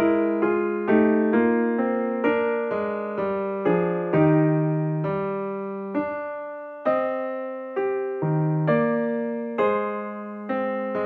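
Background music on a keyboard: a slow, gentle melody of single struck notes, about two a second, each ringing and fading before the next.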